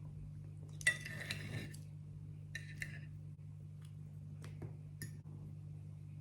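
Dishes and cutlery clinking and clattering: a ringing clatter about a second in, a shorter one near the halfway point, then a few single light clicks, over a steady low hum.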